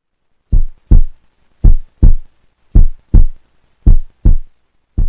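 Heartbeat sound effect: steady pairs of low thumps in a lub-dub rhythm, about one pair a second, starting about half a second in.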